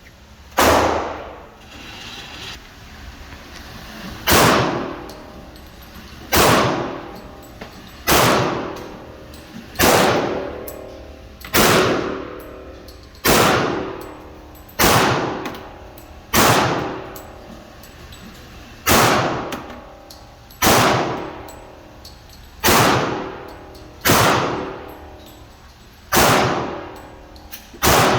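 Glock 30 .45 ACP pistol fired in slow, deliberate single shots, about fifteen of them, roughly one every one and a half to two seconds after a longer pause following the first. Each shot has a long echoing decay.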